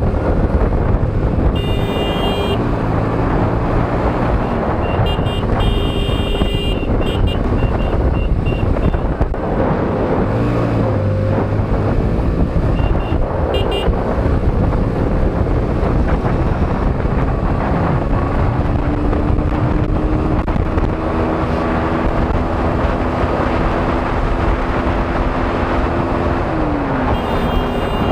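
Motorcycle being ridden, with heavy wind noise on the microphone and the engine note rising and falling with throttle and gear changes. Short horn beeps sound several times.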